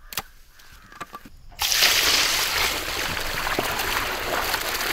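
Water poured from a steel pot into a large aluminium vessel of raw chicken wings, splashing and sloshing as hands wash the wings. The pouring starts suddenly about a second and a half in.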